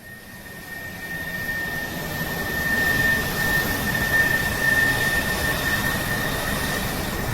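Jet airplane passing overhead: a broad rushing engine noise that swells to its loudest about three to four seconds in, with a steady high-pitched whine over it.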